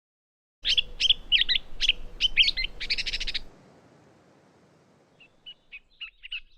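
Gray catbird singing its mimicking song: a burst of sharp, rapid notes ending in a harsh buzzy note, then after a short pause a faster, fainter run of clipped notes. The song strings together phrases copied from other species.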